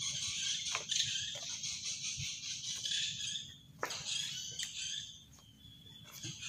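Tikarol singing: a dense, high chirping chorus that thins out after about five seconds. A few knocks of footsteps on the wooden boardwalk sound under it.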